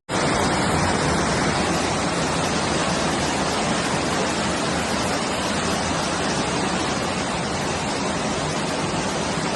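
Loud, steady rushing noise of the cyclone's storm, starting abruptly.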